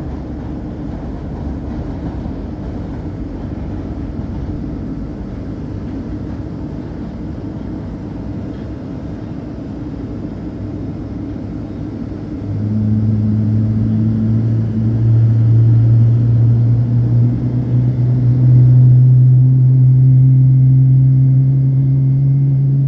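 Steady low rumble of engines on an airport apron. About halfway through, a louder, low engine drone comes in and slowly rises in pitch.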